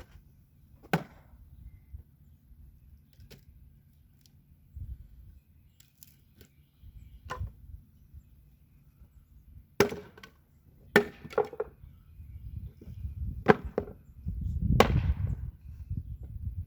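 Firewood being split from sawmill cutoffs: a splitting tool striking the wood in about eight sharp, irregularly spaced chops, with a quick cluster near the middle and the loudest blows in the second half.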